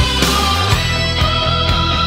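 Rock music soundtrack with guitar.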